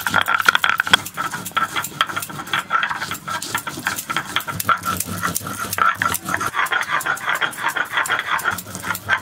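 Dried red chillies being ground by hand on a stone slab with a stone muller (shil-nora): a rapid, gritty back-and-forth scraping. A high squeaky tone runs through much of it, swelling and fading.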